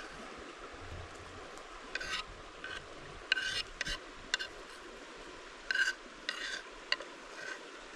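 Kitchen knife scraping diced onion off a wooden cutting board into a bowl: a string of short, sharp scrapes starting about two seconds in.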